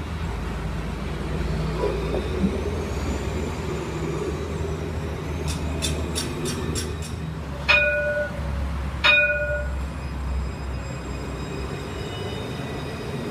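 Alstom Citadis light-rail tram running on its track with a steady low rumble. About eight seconds in, two sharp ringing strikes of the tram's warning gong, a second and a half apart, stand out loudest; a faint high steady whine follows near the end.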